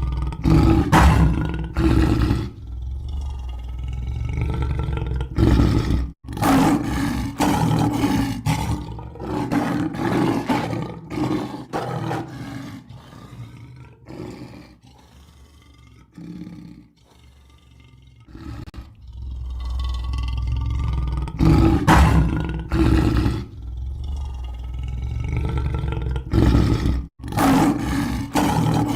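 Lion roaring and growling in long loud bouts, with a quieter stretch in the middle. The sound cuts out abruptly twice, as at joins between spliced recordings.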